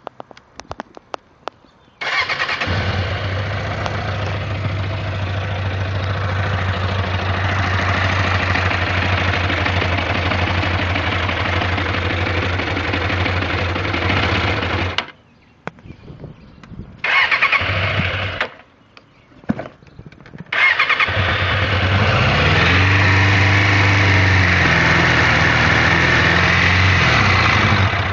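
Suzuki Katana 600's inline-four engine starting after a few clicks and running steadily, then cutting out. It catches briefly and dies again, then starts once more and runs with a few revs. The engine makes an odd noise that the owner suspects may be a knock, and it tends to die.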